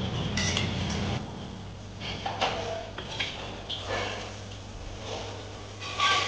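Metal kitchenware handled around an aluminium pot: a handful of short clinks and knocks, the loudest near the end. Under them is a steady low hum, and a louder low rumble stops about a second in.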